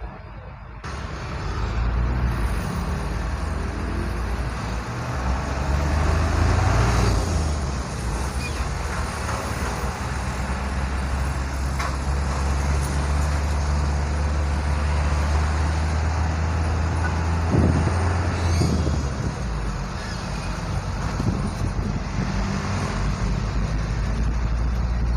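Engine of a delivery vehicle moving off in slow stop-and-go traffic: a low drone that comes in about a second in, steps up in pitch a few seconds later, holds steady, then drops back about three-quarters of the way through.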